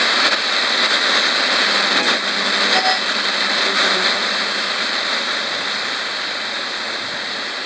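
Radio static hissing as the tuning knob is turned by hand, sweeping the dial between stations. A faint steady high whistle runs under the hiss, and short faint tones break through here and there.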